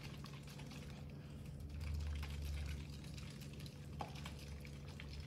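Faint small clicks and rustles of handling and movement over a low steady room hum, with a brief low rumble about two seconds in and a single light click near the end.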